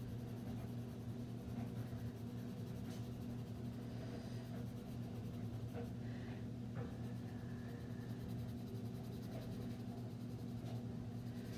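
Pencil shading on sketchbook paper: faint, steady scratching of graphite strokes, over a steady low hum.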